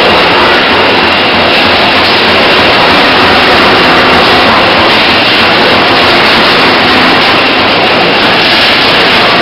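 Tyre recycling crumb-rubber machinery running: a loud, steady mechanical din from the rubber crusher mills and their electric drive motors, with a steady high whine running through it.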